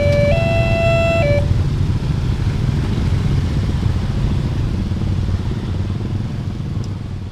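Railway level-crossing warning siren alternating between two notes about once a second, cutting off about a second and a half in. A steady low rumble of road traffic carries on and fades near the end.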